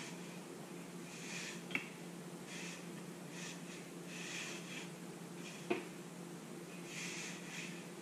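Hands pressing and adjusting ceramic wall tiles set in adhesive: soft intermittent scuffing, with two sharp clicks about two and six seconds in, over a steady low hum.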